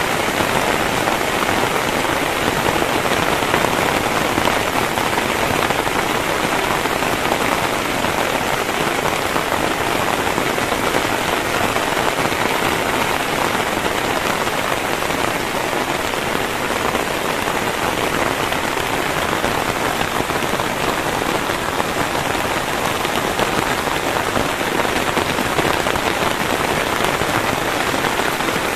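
Heavy rain falling steadily: a loud, even hiss of drops on surfaces that stays constant throughout.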